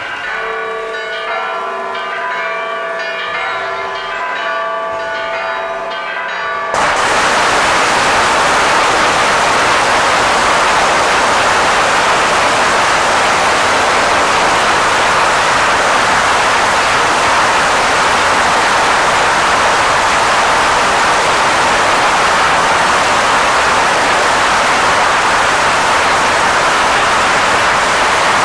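Church bells ringing, heard as a set of steady, overlapping pitched tones. About seven seconds in, a sudden, much louder, continuous rushing noise cuts in and stays even through the rest, drowning the bells.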